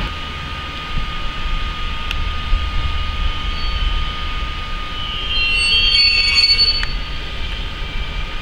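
ÖBB Taurus electric locomotive rolling slowly past, with a low rumble and a steady whine. Between about five and seven seconds in, high wheel squeals rise over it.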